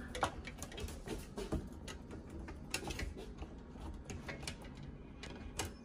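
Kitten in a cone collar moving about at its litter box: irregular light clicks and rustles of litter pellets and plastic, some sharper clicks near the end.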